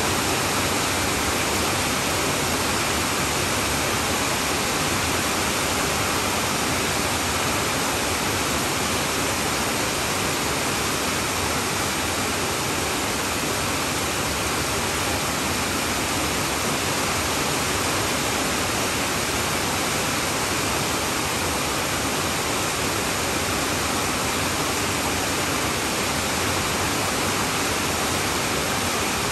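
Heavy downpour on a tin roof: a steady, even rush of noise with no single drops or thunder standing out.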